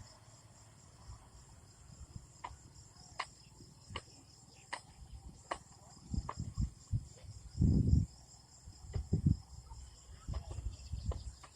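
Crickets chirring steadily in the background, with a run of sharp clicks about every three-quarters of a second. From about six seconds in, low thumps and rumbles come in, the loudest near eight seconds.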